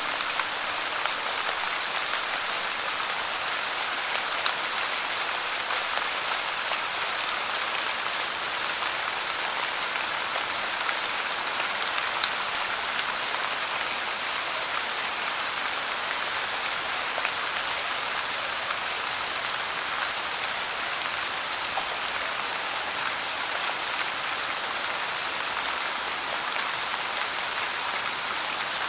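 Light rain falling steadily, an even hiss flecked with small, scattered drop ticks.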